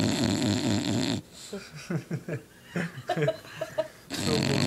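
Bulldog snoring loudly in deep sleep: a long rasping snore ends about a second in. Then comes a quieter stretch of short breathing noises and small squeaks, and the next loud snore begins near the end.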